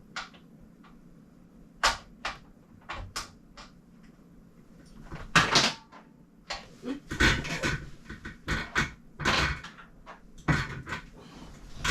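Bike parts and tools being handled: a few separate sharp clicks and taps, then from about halfway in a busier stretch of clattering and scraping.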